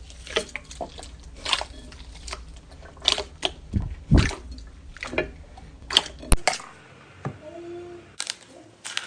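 Slime being squished and poked: wet squelches and sharp clicky pops at irregular intervals. A steady low hum under the first two-thirds cuts off abruptly.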